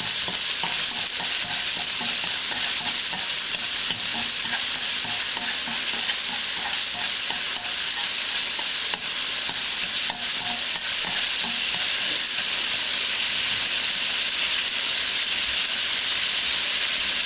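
Diced pork belly sizzling steadily in a hot wok as its fat renders out, with occasional light clicks of chopsticks stirring the pieces.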